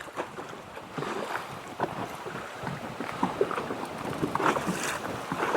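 Small waves slapping irregularly against the side of a small fishing boat, with wind buffeting the microphone.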